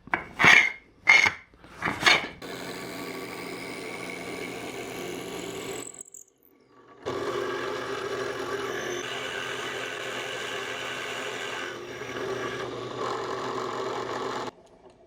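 Power drill boring a hole through a maple clamp jaw for the lead-screw nut. It runs steadily for about three and a half seconds, stops briefly, then runs again for about seven seconds before cutting off.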